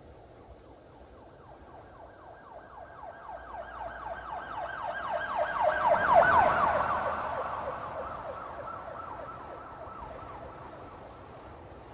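Police car siren on a rapid yelp, several quick pitch sweeps a second. It grows louder to a peak about six seconds in, then fades away.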